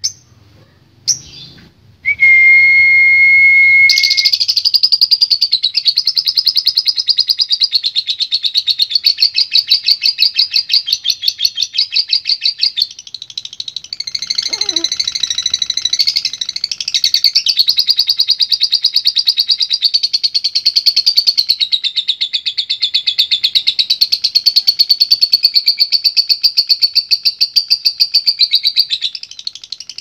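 Lovebird 'ngekek': a long, rapid chattering trill of high notes kept up for over twenty seconds, dipping briefly near the middle. It is preceded by a few short chirps and a steady whistled note of about two seconds.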